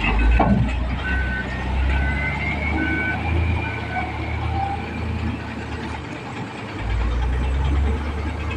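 Heavy diesel machine's reversing alarm beeping about once a second, five beeps that stop about four seconds in, over the low running of the engine, which swells again near the end.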